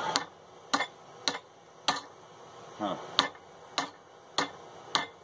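Hand hammer striking a red-hot steel bar to bend it around the pipe of a vise-held bending jig. Eight sharp metal strikes come about every half second, with a pause of about a second in the middle.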